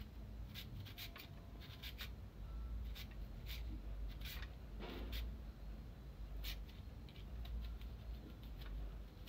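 A carrot being grated on a handheld grater: irregular rasping strokes as the carrot is drawn across the blades, a stroke or two every second.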